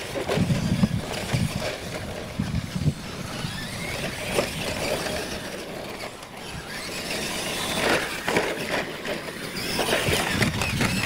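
Radio-controlled monster trucks racing over dirt and wooden ramps: small motors running and tyres churning the dirt, with several sharp knocks as they hit and bump over the track.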